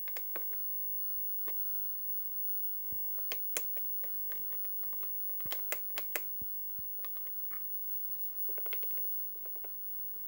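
Plastic button clicks from an RC transmitter as its menus are worked through. The clicks are scattered and come in small groups, with a quick run of rapid clicks about eight and a half seconds in.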